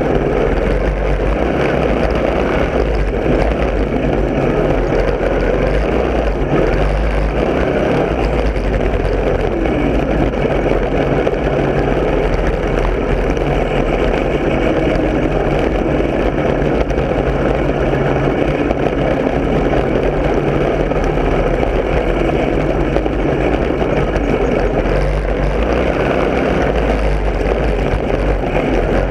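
Lawn mower engine running steadily and loudly, without pause.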